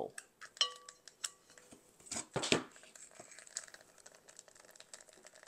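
Hot-glue-gun and terracotta-pot handling noise: small clicks and rustles, a brief squeak just under a second in, and two sharp knocks a little after two seconds in.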